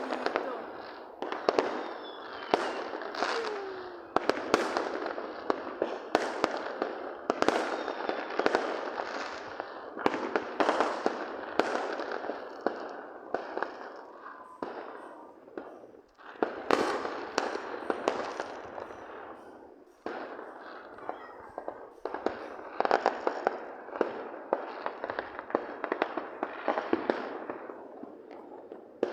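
Fireworks going off in rapid, overlapping succession: a dense run of sharp bangs and crackles that eases off briefly twice, about halfway through and again a few seconds later.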